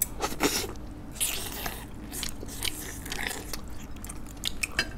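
Close-up eating sounds of a person gnawing boiled chicken off the bone: chewing and sucking, with irregular wet mouth clicks and a few short noisy bursts.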